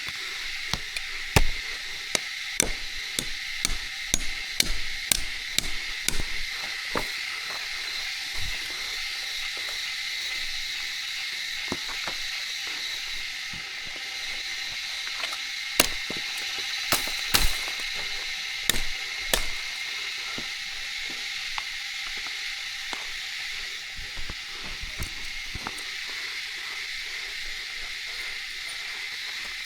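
Irregular sharp knocks like chopping, in two bursts, over a steady high-pitched drone of rainforest insects.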